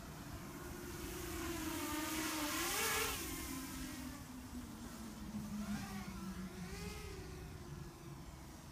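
Customized Runner 250 racing quadcopter, with Emax RS2205 2300 kV brushless motors on a 3S battery, flying past: the motor and propeller whine grows to its loudest about three seconds in, drops in pitch as it passes, then rises and falls again with the throttle near the end.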